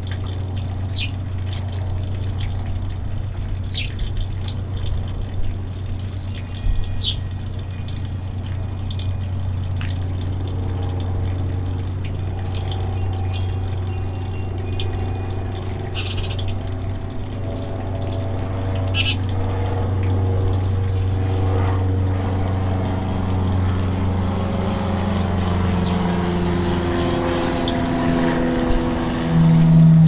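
Finches giving short, scattered chirps over a steady low hum with a watery, pump-like noise. From about a third of the way in, a series of held musical tones at changing pitches grows louder toward the end.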